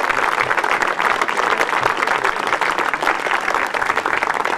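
A crowd of onlookers applauding, many hands clapping steadily.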